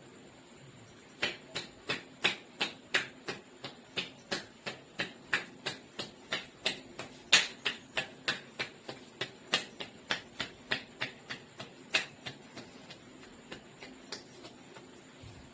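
Rhythmic percussive tapping of a head massage: hands striking the head in sharp slaps about three times a second. The slaps start about a second in and trail off softer near the end.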